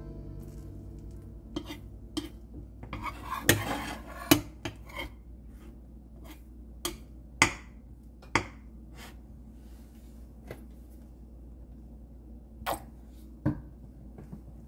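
Stainless steel slotted turner knocking and scraping against a nonstick frying pan as an egg roll is rolled. There are scattered sharp clicks, with a short scrape and the loudest knocks about three to four seconds in.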